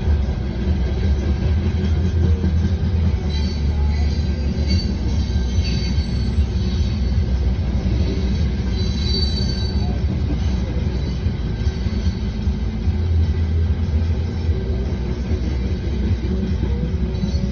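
Freight train rolling through a grade crossing, heard from inside a car: a steady low rumble of wheels on the rails, with brief high-pitched wheel squeals a few seconds in and again about nine seconds in.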